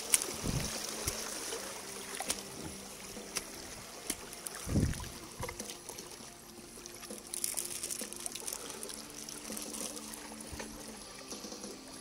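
Water trickling over wet rocks, with scattered clicks and two low thumps, about half a second and just under five seconds in.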